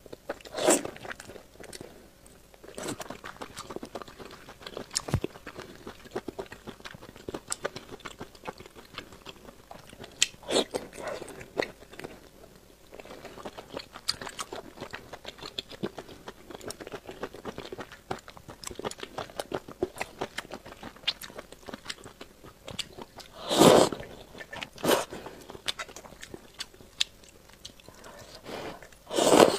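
A person chewing and biting food close to a clip-on microphone: wet chewing and mouth clicks of noodles and braised offal, with a few louder, longer slurping sounds spread through.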